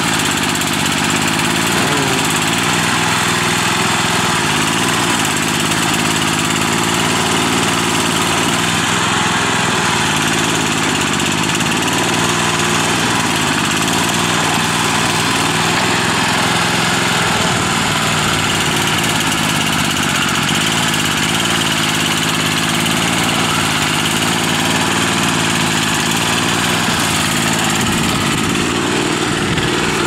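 Small engine of a Cranvel Little Digger tow-behind backhoe running steadily while its hydraulic boom digs into soil.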